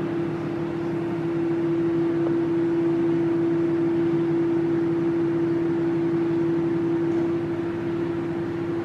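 A kitchen appliance's fan running steadily: an even whir with a steady hum.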